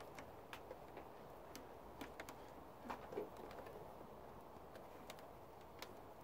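Faint, irregular light clicks and taps, about a dozen scattered over a low steady hiss, with a slightly louder pair about three seconds in.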